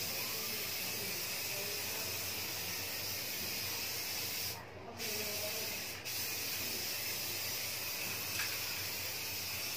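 Aerosol spray can of clear coat paint hissing steadily as it sprays, with a short pause just before five seconds in and a brief break about a second later.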